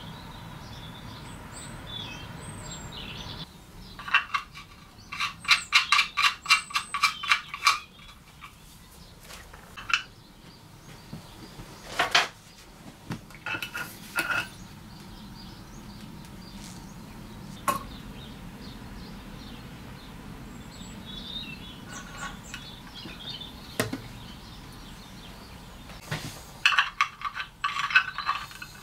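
Bursts of rapid metallic clicking, about three seconds long, with single sharp clinks and knocks in between, like a ratchet or metal parts being handled.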